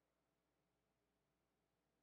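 Near silence: a faint, steady noise floor with no distinct sound.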